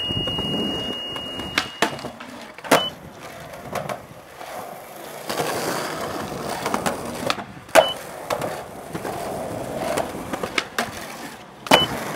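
Skateboard wheels rolling over concrete, broken by sharp clacks of the board popping and landing during tricks, four of them standing out, the loudest about two-thirds of the way in.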